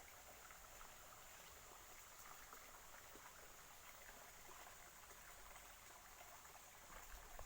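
Near silence: faint, even outdoor background hiss with a few light ticks.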